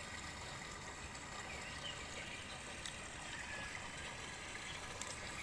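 Small stream's water running: a steady, even rush.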